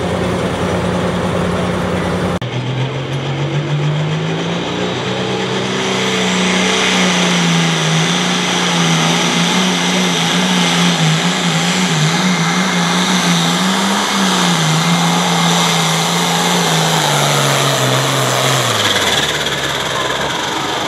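Light Limited Pro Stock pulling tractor's turbocharged diesel engine at full throttle on a pull. The engine note climbs over the first few seconds, holds high and wavers as the tractor drags the sled, then drops off near the end as the throttle is let off. A shorter stretch of another tractor's engine running comes before it.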